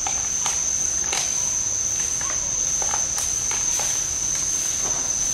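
A steady, high-pitched insect chorus drones on one unbroken tone, with scattered light clicks and rustles close by.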